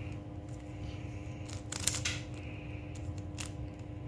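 Plastic Rubik's cube layers being twisted by hand: a few sharp plastic clicks, the loudest cluster a little under two seconds in and another single click later, over a steady background hum.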